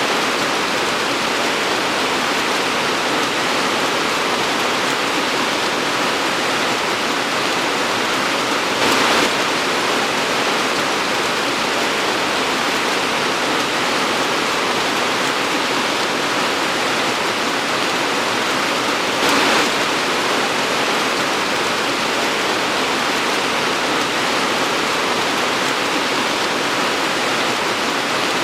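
Torrential rain pouring down, a dense, steady hiss with two brief louder swells about nine and nineteen seconds in.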